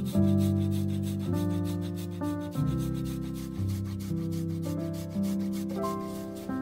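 Fresh ginger root grated on a stainless Microplane rasp grater, making a quick, even run of scraping strokes, several a second. Piano music plays beneath.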